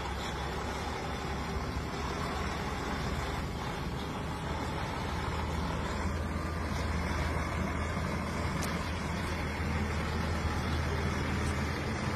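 Diesel engine of a DAF articulated lorry running at low speed as it manoeuvres through a tight turn. It is a steady low rumble that grows a little louder from about halfway through as the truck comes closer.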